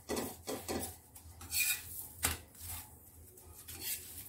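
Metal spatula scraping and clacking against a flat metal tava in a few short strokes as a puran poli is pressed down and turned over.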